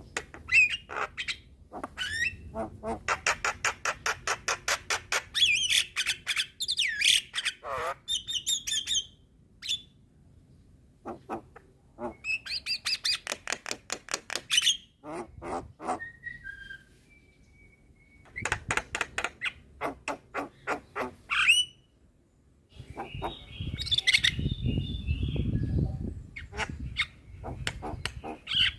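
Javan myna calling: runs of rapid, harsh rattling notes, about five a second, broken by pauses, with squawks and a short whistled note. A low rumbling noise comes in about two-thirds of the way through.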